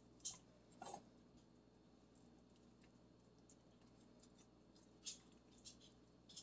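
Faint, short wet clicks and smacks of fingers rubbing spice paste into a whole fish's skin. A couple come near the start and a small cluster comes about five seconds in, over near-silent room tone.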